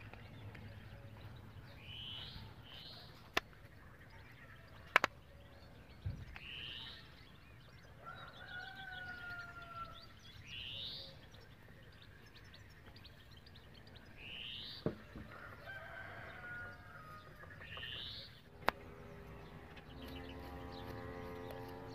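A rooster crows twice, about a third and two thirds of the way through, while a small bird repeats a short rising chirp every few seconds. A few sharp metal clicks, the loudest about five seconds in, come from a screwdriver on a scooter carburettor, and a steady hum starts near the end.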